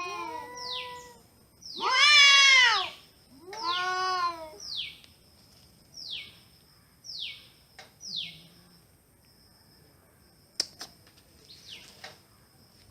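Domestic cats meowing: overlapping meows at the start, a loud drawn-out meow about two seconds in and another after it, then a run of four short, high, falling calls. A few sharp clicks near the end.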